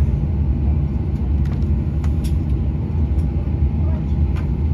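Steady low cabin rumble inside a Boeing 737-700 rolling slowly on the ground, from its engines at idle and the air conditioning, with a faint steady tone and a few faint clicks.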